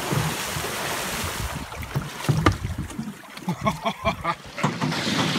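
Water splashing and churning against the stern of a boat as a great white shark thrashes at the surface, with wind on the microphone. The splashing eases after about a second and a half, leaving a few sharp knocks, the loudest about halfway through.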